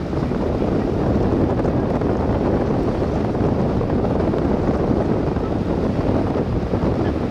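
Wind buffeting the microphone: a steady, dense low rush with an uneven rumble underneath and no clear engine tone.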